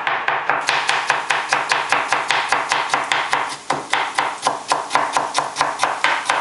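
Knife slicing raw potatoes thinly on a plastic cutting board: a quick, even run of cuts at about five a second, with a brief pause a little past halfway.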